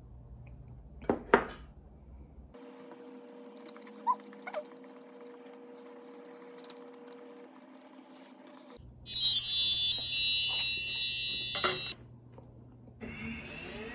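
A couple of sharp clinks of tableware as the bowl is set down, then quiet room tone. From about nine seconds in, a bright, high chime sound effect rings for about three seconds before cutting off.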